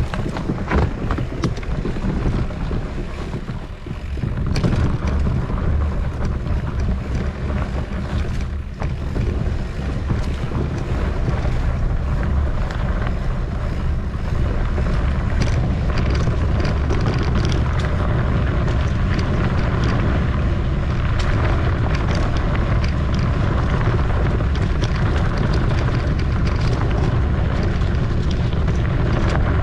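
Wind buffeting the microphone of a camera riding along on a mountain bike, a steady low rumble, with scattered clicks and rattles from the bike going over rough trail.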